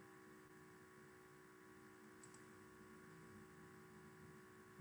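Near silence: a faint steady electrical hum, with two tiny clicks about two seconds in.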